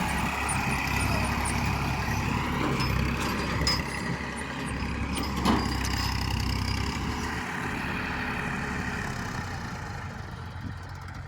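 Heavy vehicle engine running steadily, with a sharp knock about five and a half seconds in; the engine sound eases off over the last few seconds.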